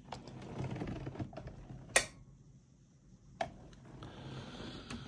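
Handling noise: scattered light clicks and rustling, with a sharp click about two seconds in and another about three and a half seconds in.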